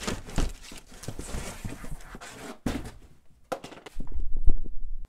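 Parcel contents being handled and unpacked: rustling with scattered knocks and clicks, then loud, low thuds and rumbling from about four seconds in.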